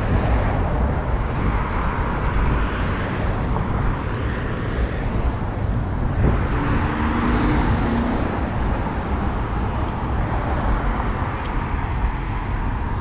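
Steady road traffic noise with a low rumble underneath.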